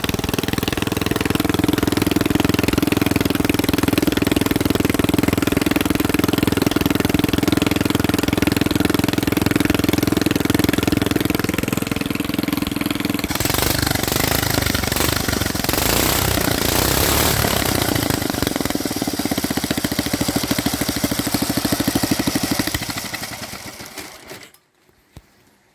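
Homemade lawn mower's small petrol engine running steadily. About halfway through the sound turns noisier and harsher, and near the end the engine dies away and stops.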